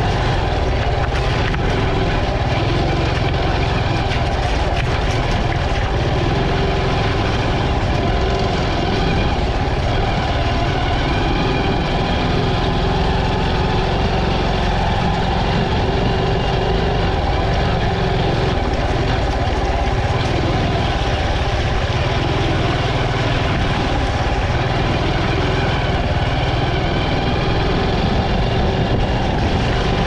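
Honda CT125 trail bike's single-cylinder four-stroke engine running steadily under way, with the tyres rolling over rocks and gravel in a shallow creek bed.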